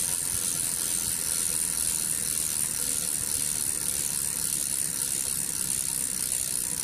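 Steady, rapid ratcheting buzz of a bicycle freewheel spinning, used as a sound effect, with a bright hissy edge.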